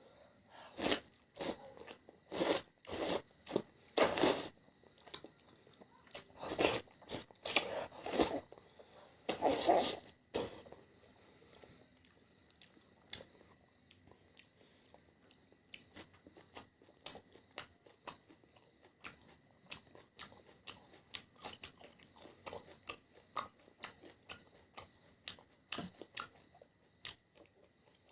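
A person chewing and crunching food close to the microphone. Loud, crisp bites come in quick succession over the first ten seconds or so, then give way to softer, rapid mouth clicks and smacks.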